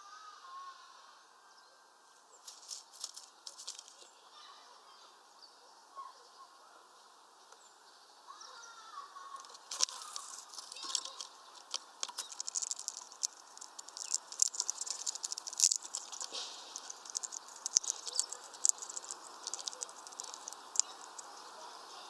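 Hawfinch and a smaller finch pecking and cracking seeds at a feeder: irregular sharp clicks and taps, a few at first and then thick and fast from about ten seconds in. A few faint bird calls near the start and around nine seconds.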